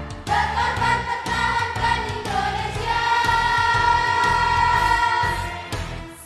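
Choir of boarding-school students singing together, holding one long note through the middle that breaks off shortly before the end.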